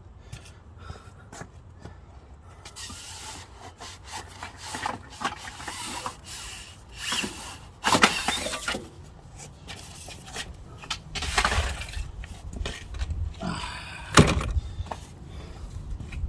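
Hard parts being handled and worked by hand: irregular clicks, knocks and rubbing or scraping, with the loudest knocks about 8 and 14 seconds in.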